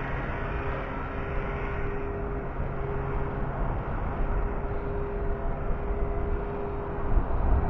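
Steady outdoor background noise: a low rumble with a faint, steady engine-like hum, the rumble growing louder near the end.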